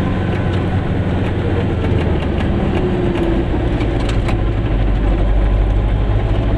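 Goggomobil's small two-stroke twin engine running as the microcar drives along. The engine note drops about halfway through.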